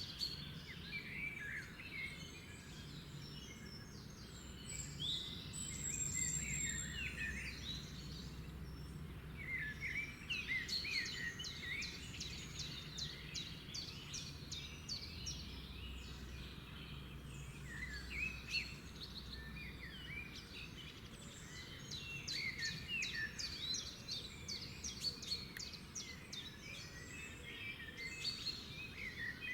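Many birds chirping and singing at once in a dense chorus of short chirps, quick trills and rising and falling whistles, over a low steady background rumble.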